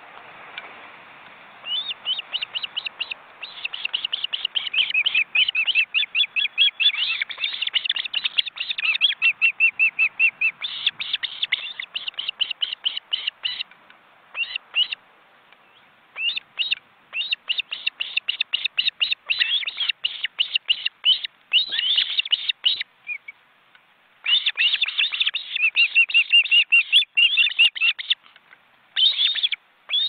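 Ospreys calling at the nest: long runs of short, high, whistled chirps, several a second, broken by a few brief pauses.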